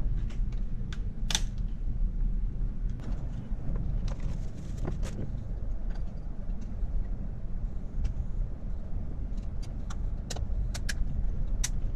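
Plastic and glass parts of a scuba mask clicking as the lens and its frame are handled and pressed into place, in scattered sharp clicks with several close together near the end, over a steady low hum.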